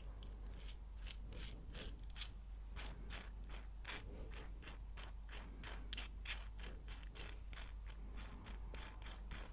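Rapid, even run of small ratcheting clicks, about four to five a second, from a mechanism being turned or adjusted.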